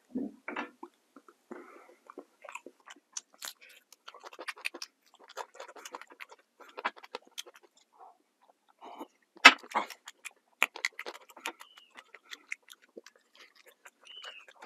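Close-miked eating: wet chewing and lip-smacking made up of many small clicks and crackles. About halfway through comes one sharper, louder click.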